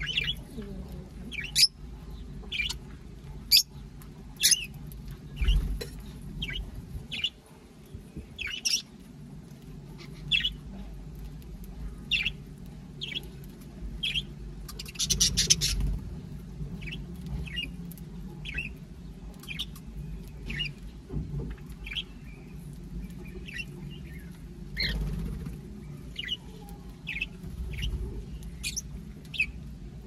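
Mixed flock of lovebirds, budgerigars and cockatiels chirping: short, sharp, high chirps about once a second, with a longer harsh burst about halfway through.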